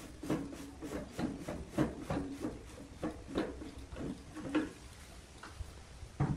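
A lathe faceplate being unscrewed by hand from the spindle: a run of light clicks and rubs, about two or three a second, then a louder knock near the end as the vase on its faceplate is set down on the metal lathe bed.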